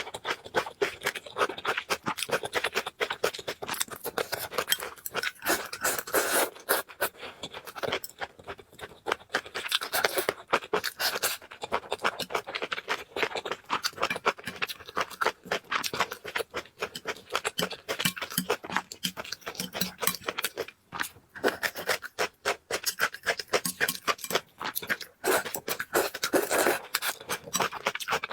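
Close-miked eating sounds: noodles and food being chewed and slurped, heard as a dense, continuous run of quick, crackly clicks.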